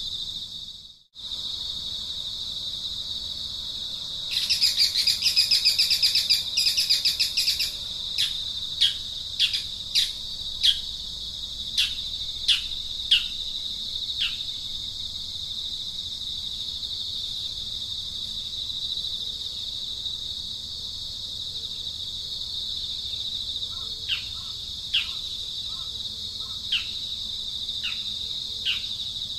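Steady high-pitched drone of insects, with a bird calling over it: a loud burst of rapid chirps about four seconds in, then a series of short, sharp down-slurred whistles, repeated again near the end.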